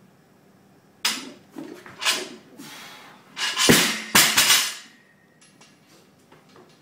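A barbell loaded with 165 lb of iron plates clanks as a power clean is lifted and caught, about a second in and again a second later. Past three and a half seconds it is dropped onto the rubber floor mat and lands with two heavy thuds, about half a second apart, with the plates rattling.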